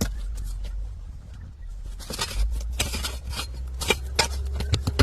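Footsteps scuffing and clicking on rocky ground: scattered sharp clicks that come thicker and faster after about two seconds, over a low rumble.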